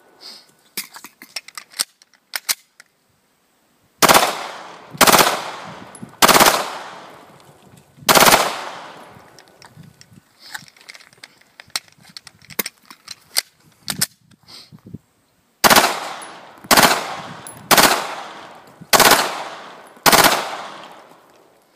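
A 9mm Glock pistol firing nine shots, each with a short echo: four spaced one to two seconds apart, then after a pause a string of five about a second apart. Faint small clicks of the pistol being handled come in the gaps.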